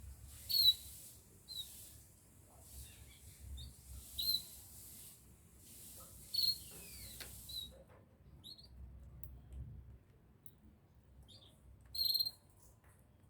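Small pet birds giving short, high chirps, about a dozen scattered through the stretch, with the loudest just under a second in and near the end. A faint steady hiss sits under the calls and stops suddenly about eight seconds in.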